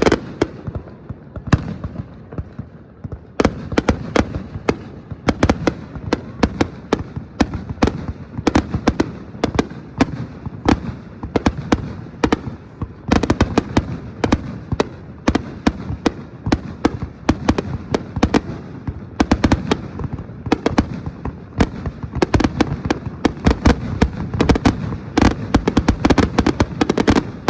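Aerial fireworks display: a rapid series of sharp booms and crackling bursts with rumbling echoes, growing denser toward the end in a finale-like barrage.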